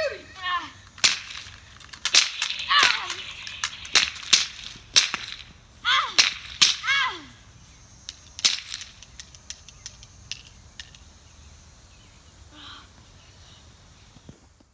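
Toy cap guns firing a dozen or so sharp cracks at uneven intervals, mixed with children's short cries of pain. After about eight seconds the shots stop and only a faint background remains.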